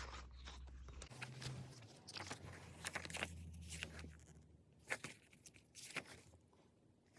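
Handling of a CD album and its paper photo book: irregular rustling of paper and card with light taps and clicks.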